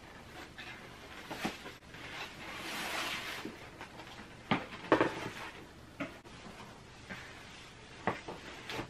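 Handling of cowboy boots in a cardboard shoe box: plastic wrapping rustles as the boots are lifted and set down, with several sharp knocks of the boots against the box and the wooden floor, the loudest about five seconds in.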